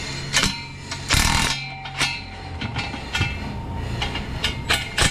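Cordless impact wrench hammering an exhaust flange nut tight, in one short burst of about half a second a little over a second in, with sharp clicks of the socket and metal parts around it. A steady low hum runs underneath.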